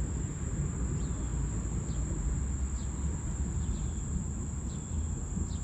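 Pouring rain hissing steadily under a constant high trill of crickets, with a low rumble underneath and a few faint short chirps.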